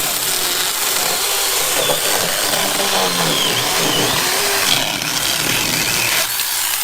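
Compact cordless mini chainsaw running at full speed with its chain cutting through a log thicker than its short bar, as a steady loud buzz. It eases off near the end as the cut finishes.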